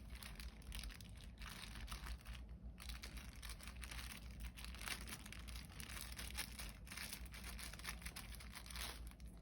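Faint, continuous sticky crackling of homemade glue slime being mixed by hand.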